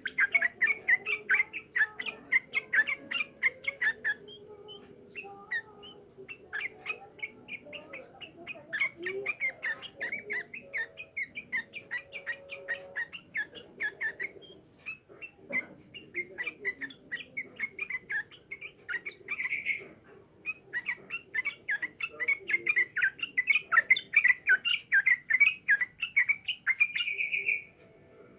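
Pet songbird singing long runs of rapid, chattering chirps, with a few short pauses.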